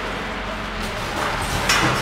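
Vertical form-fill-seal packing machine with a screw auger filler running, bagging flour: a steady machine hum with a short, louder noisy surge near the end.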